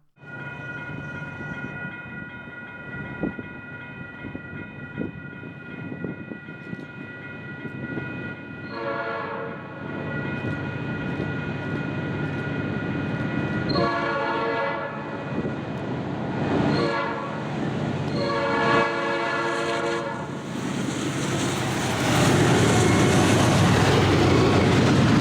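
Norfolk Southern freight locomotives (SD70ACC 1840 leading) approach and sound a Nathan Airchime P5A five-chime horn in the grade-crossing pattern: long, long, short, long. A steady ringing tone runs underneath. The locomotives then pass close by, running loud under power.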